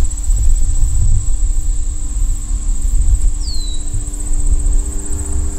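Insects trilling steadily in a high, pulsing tone over a heavy low rumble on the microphone. A single short whistled bird note slides downward about three and a half seconds in.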